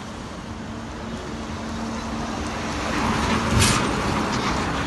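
A motor vehicle's steady running noise and low hum, growing louder to a peak about three and a half seconds in, with a brief sharp hiss at the peak.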